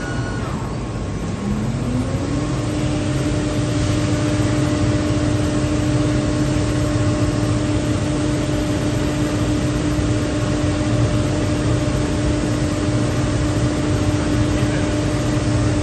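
SCM Record 132 CNC machining centre's spindle running up to speed about two seconds in, a rising whine that then holds at one steady pitch, with a conical cutter at a wooden board on the vacuum table. A steady low machine hum and hiss runs underneath.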